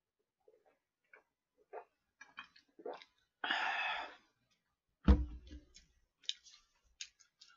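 Swallowing gulps of cola from a plastic bottle, then a breathy exhale. About five seconds in the bottle is set down on the table with a thud, the loudest sound, followed by a few small clicks of handling and chewing.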